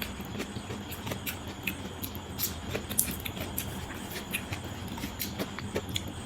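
Close-up eating sounds of a person eating biryani by hand: irregular wet smacks and clicks of chewing and fingers working the rice, over a steady low background hum.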